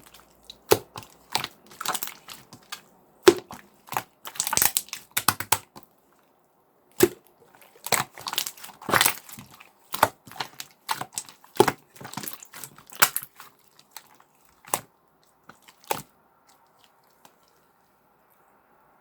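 Clear slime being pressed, folded and stretched by hand, giving irregular sticky clicks and pops. They come thickly at first, thin out, and stop a few seconds before the end.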